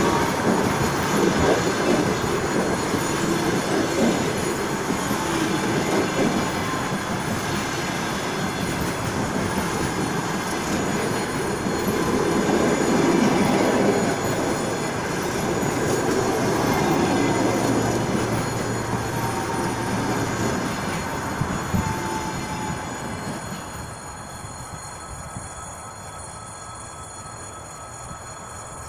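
Passenger coaches of a long-distance train rolling past close by: a steady rumble of wheels on rails. The end of the train passes about 23 seconds in, and the sound then drops away as the train moves off.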